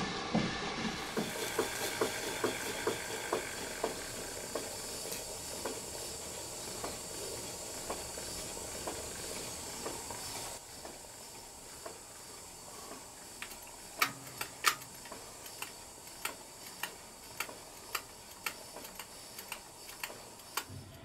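Cotswold Heritage Atlas model steam engine running on live steam, with a steady steam hiss and regular exhaust beats a little over two a second. About halfway through the hiss drops, and the beats turn into sharper separate clicks about twice a second.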